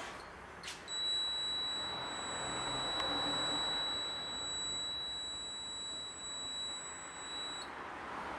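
Digital angle torque wrench giving one steady, high electronic beep. The beep starts about a second in and lasts about seven seconds before cutting off. It is preceded by a couple of light clicks.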